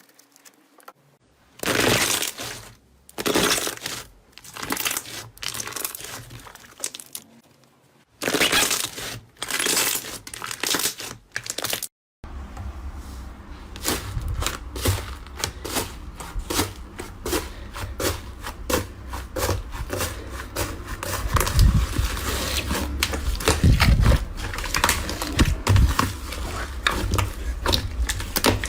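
Slime being squeezed and pressed by hand. First come separate squishy bursts a second or so apart. Then, after a sudden cut about twelve seconds in, comes a dense run of fast crackling and popping.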